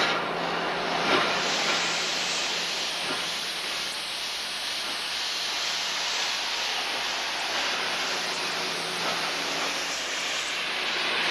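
Steady hiss of escaping steam from a steam locomotive, with a couple of sharp clicks in the first second or so.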